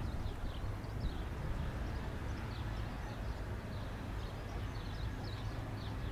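Small birds chirping repeatedly, short high notes sliding downward, over a steady low rumble.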